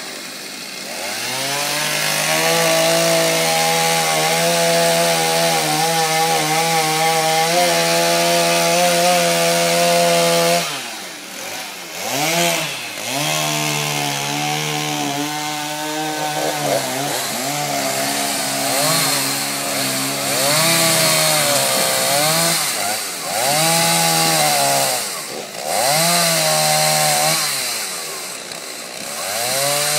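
Chainsaw held at full throttle for several seconds while cutting into wood. It then throttles up and down repeatedly, dropping briefly toward idle between short cuts.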